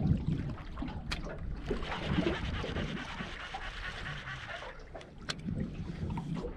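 Water lapping and trickling against the hull of a drifting boat over a steady low rumble, with two sharp clicks, one about a second in and one a little after five seconds.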